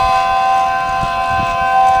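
Homemade 3D-printed mini ACA P10 tornado siren (12/9 ports) sounding its alert, holding a steady chord of several tones at constant pitch. Gusts of wind buffet the microphone underneath.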